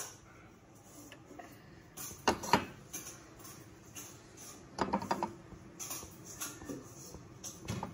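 Scattered light clicks and knocks from a frying pan with a block of butter melting in it, a few louder ones about two and a half seconds in, a cluster around five seconds, and one near the end.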